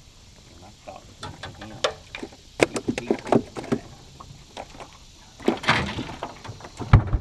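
Knocks and clatter of handling in a jon boat as a plastic cooler is opened, with a scraping rustle about six seconds in and one heavy thump near the end.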